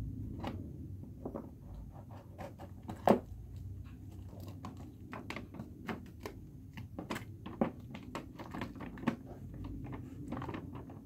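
Irregular small clicks and knocks of hands fumbling an AV cable plug against a device's socket, which will not go in, with one sharper knock about three seconds in.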